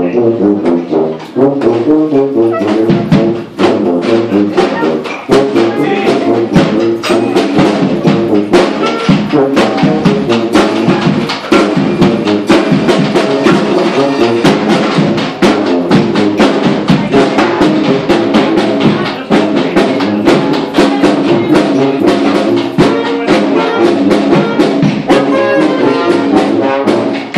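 Brass band playing together, trombones and trumpets carrying the tune over drums that keep a steady beat.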